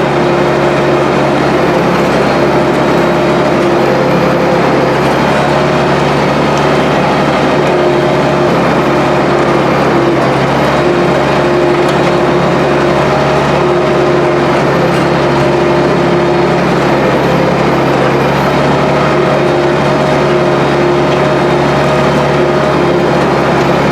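International 1066 tractor's six-cylinder turbo diesel engine running loud and steady under load, heard close up from on the tractor.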